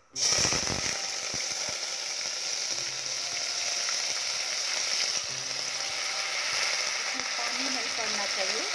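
Hot ghee sizzling as soaked rice is added to it in a pressure cooker, with whole spices frying in the fat. The sizzle starts suddenly as the wet rice hits the ghee, then holds steady.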